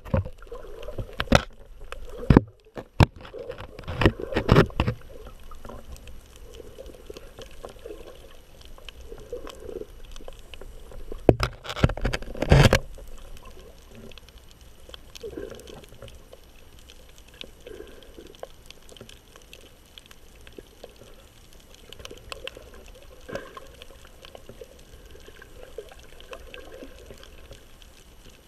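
Underwater sound picked up through a GoPro's waterproof housing: a muffled wash of water, with a run of sharp knocks and bumps on the housing in the first five seconds and again around twelve seconds in.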